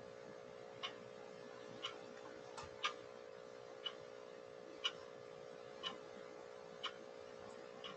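Faint clock ticking about once a second, over a steady hum.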